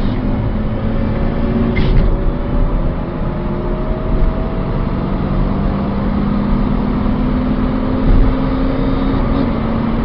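Turbocharged Toyota Starlet's four-cylinder engine, fitted with an aftermarket back box and air filter, pulling hard under acceleration, heard from inside the cabin over road and wind noise. The pitch climbs, drops at a gear change about two seconds in with a short hiss, then climbs slowly again.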